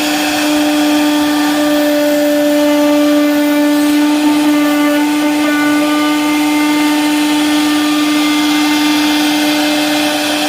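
An electric power tool's motor running at a steady speed with a strong, even whine.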